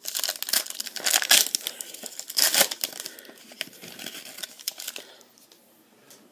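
Foil trading-card pack wrapper crinkling and tearing open by hand, a dense crackle that is loudest twice in the first few seconds and dies away about five seconds in.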